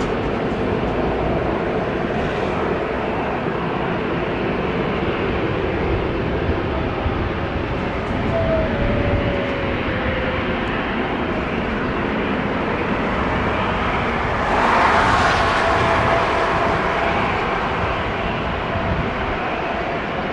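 Jet engines of an Airbus A380-800 running: a steady rushing noise with a faint whining tone, swelling briefly louder about fifteen seconds in.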